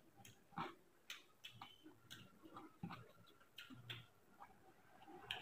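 Faint eating sounds: scattered soft, irregular clicks of closed-mouth chewing and fingers working rice on a steel plate.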